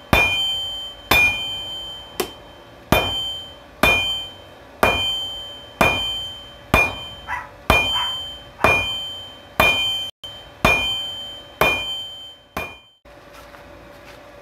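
Hand hammer striking hot steel on a 66 lb anvil, a steady rhythm of about one blow a second with a few lighter taps between, each blow ringing and fading. The hammering stops near the end, leaving a faint steady hum.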